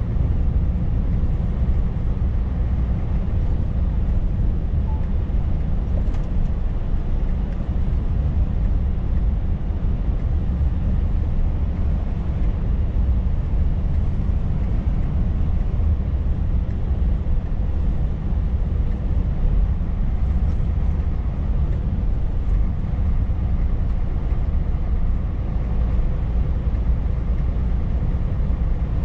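Steady, deep drone of a Scania 16-litre V8 diesel truck under way, heard inside the cab, mixed with road and tyre rumble.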